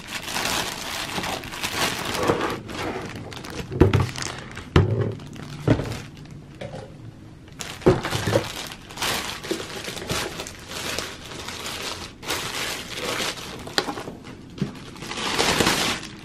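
Thin plastic bag crinkling and rustling as it is pulled off a boxed portable stove, with several dull knocks as the unit is handled.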